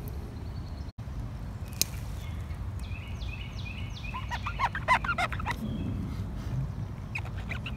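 Wild birds calling: a short run of quick, high, falling notes about two and a half seconds in, then a burst of rapid chattering calls around the middle, over a steady low rumble.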